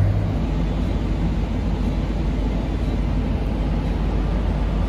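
City bus interior: a steady low rumble of the engine and road noise while the bus is moving.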